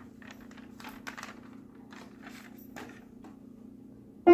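Faint rustling and crinkling of a sheet of lined paper being handled, a few scattered soft rustles over a steady low hum. Right at the end an upright piano is struck and a note rings out loudly.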